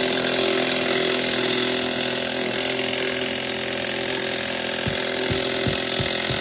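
Power impact wrench running continuously, hammering at a wheel nut on a tractor wheel that is slow to break loose. Low thumps come about twice a second from near the end.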